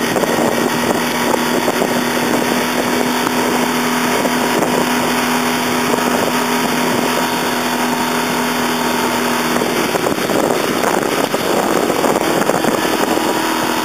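Small outboard motor on an inflatable dinghy running at speed while towing a tube, a steady drone with wind on the microphone. Its note changes about ten seconds in.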